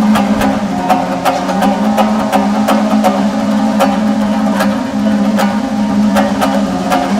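Instrumental background music: a steady percussive beat of about two to three strikes a second over a held low drone.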